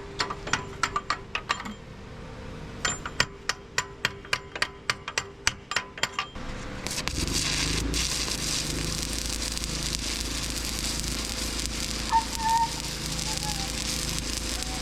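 Chipping hammer rapping on a steel weld to knock off the slag, in two quick runs of sharp strikes, about five a second. About six and a half seconds in, a stick-welding arc strikes and crackles steadily as he re-welds with a 3/32 rod.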